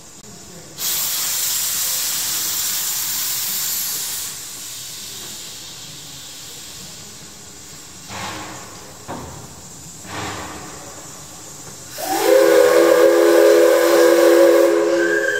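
Steam locomotive venting steam: a loud hiss for about three seconds, then a few short hisses. Near the end its steam whistle blows for about three seconds, several tones sounding together as a chord; this is the loudest part.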